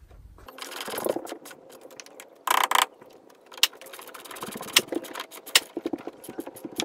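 Ratchet socket wrench clicking and metal tools clinking while the battery terminal clamps are tightened with a 10mm socket. There is a brief louder rasp about two and a half seconds in, and a run of fairly regular clicks later on.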